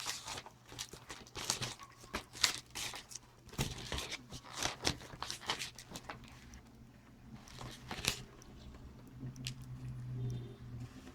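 Parcel packaging crinkling and rustling as it is handled, in quick irregular crackles for about the first eight seconds, then quieter.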